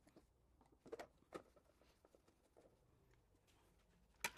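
Near silence with a few faint clicks and taps from handling a small electrical junction box and its cover, and a sharper pair of knocks near the end.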